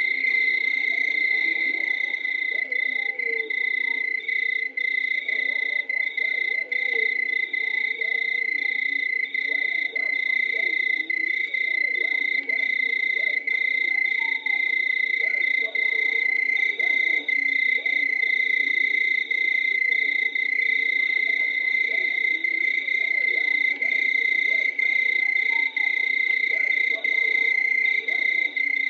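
Night chorus of many frogs croaking over one another, under a continuous high-pitched insect trill.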